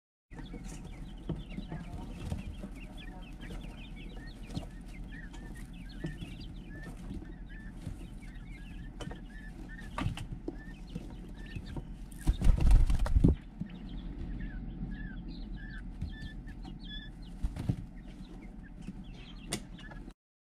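Young tuxedo Coturnix quail peeping with many short, high chirps, with scattered light clicks. About twelve seconds in, a loud rustling burst lasts about a second.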